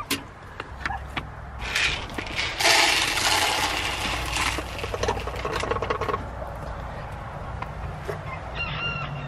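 Dry poultry feed poured from a plastic bucket into a hanging feeder, the grain rushing out for about two seconds.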